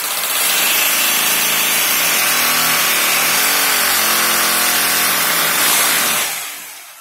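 Electric hammer drill boring into a brick wall, running steadily at full speed and winding down about six seconds in.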